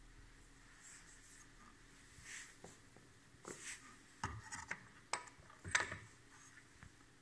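Faint handling noises as the edge bander's parts and packaging are unpacked: light rubbing with a few soft knocks and clicks, the loudest about four and six seconds in.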